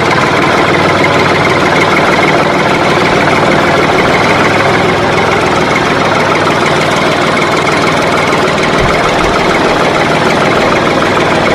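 A motor or engine running steadily, with a fast, even rattle.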